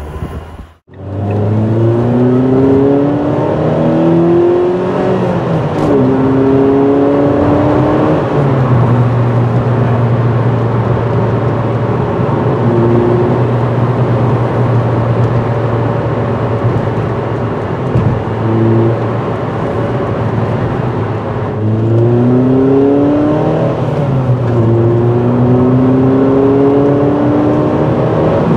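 2006 Ford Fiesta ST150's 2.0-litre four-cylinder engine, fitted with a cone air filter and a resonator-deleted exhaust, heard from inside the cabin while driving. It accelerates hard through the gears, the pitch rising and dropping back at each upshift, then settles into a steady drone while cruising, and pulls through the gears again about three-quarters of the way through.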